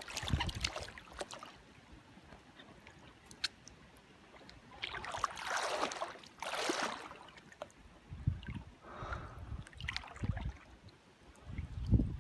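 Paddling strokes splashing and swishing through shallow stream water, several strokes with a quieter gap in the middle. Low rumbles of wind on the microphone come in the second half.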